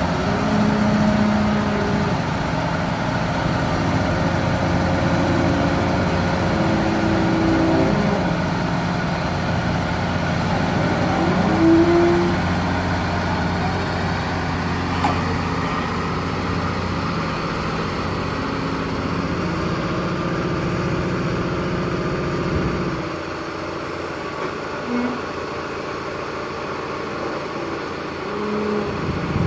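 Caterpillar 336E hydraulic excavator's diesel engine running steadily under load while it lifts and swings a precast concrete pavement panel. The engine note drops lower and quieter about three-quarters of the way through.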